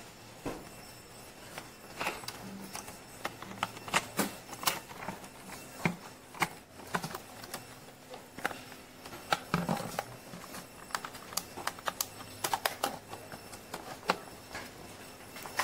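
Irregular clicks and knocks of a robot vacuum's hard plastic housing and wheel module being handled, pressed and fitted together by hand.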